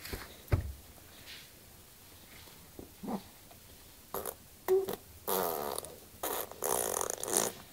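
A six-month-old baby blowing raspberries: a few short lip buzzes, then two longer buzzing raspberries in the last few seconds.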